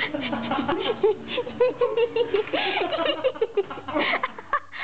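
Onlookers laughing and giggling, several voices overlapping in quick bursts of laughter.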